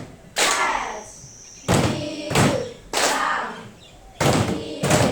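Letter sounds of the alphabet recited aloud one after another in a phonics drill, as short, punchy syllables roughly every half second to a second.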